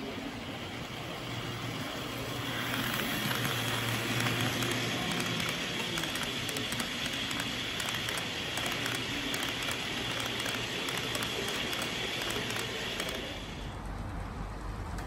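Model train running on the layout: a steady rolling rattle of metal wheels on the rails with quick clicks over the rail joints, over a low steady hum. It swells as the container wagons pass close and drops off abruptly near the end.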